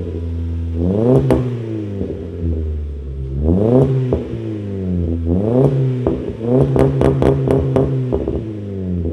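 Car engine revved in four blips through a sport exhaust with a small Luzian LA011 muffler, the note climbing and dropping back each time. About seven seconds in, the revs are held briefly and a quick run of sharp cracks comes through the exhaust.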